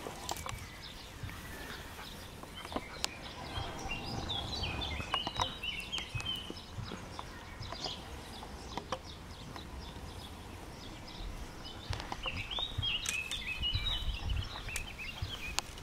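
A songbird singing, in two phrases of quick high chirps, one a few seconds in and one near the end, over a low outdoor rumble and scattered small rustles.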